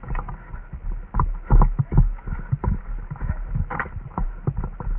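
Irregular thumps and knocks of a player on the move: footfalls and gear knocking close to a body-worn microphone.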